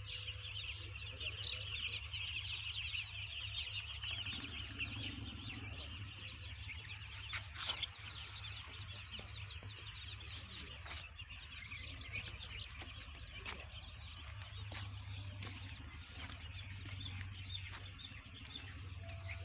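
Many chickens clucking and chattering together without a break, densest in the first few seconds. A few sharp knocks and a low steady hum run underneath.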